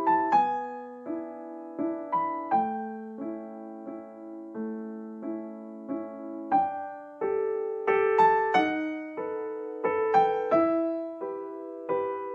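Soft background piano music: a slow, gentle melody of single struck notes over held chords.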